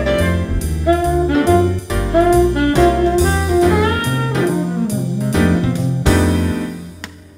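Alto saxophone playing a jazz blues line over a backing track with bass and drums. The tune comes to its end, and the last notes die away near the end.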